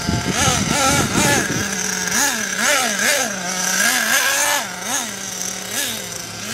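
Radio-controlled monster truck's motor whining, its pitch rising and falling over and over as the throttle is pulsed. A rough noise runs underneath it for the first second and a half.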